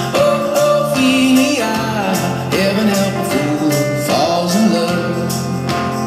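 A song with a singing voice over a steady beat, played loudly through a Sanyo MX-650K boombox's speakers from a radio station.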